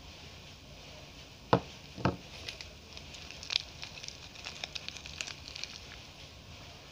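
Two hard knocks about half a second apart as bars of soap are set down on a wooden floor, then a run of small crinkling crackles from the wrapper of a Dettol soap bar being handled and opened.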